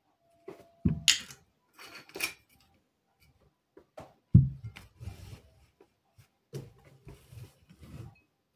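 Tableware being handled: a few short scraping, rasping rubs, then a loud knock about four seconds in and several lighter knocks, as a heavy glass tumbler and bottles are moved and set down on a table.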